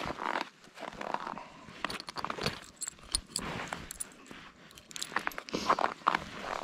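Footsteps crunching on packed snow, an uneven run of crunches and scrapes, with a few light clinks a couple of seconds in.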